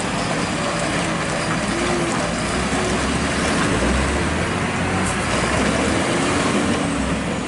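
UD Quester tanker truck's diesel engine running hard under load while trying to climb a slippery mud slope, its revs swelling and easing, with the rear wheels slipping.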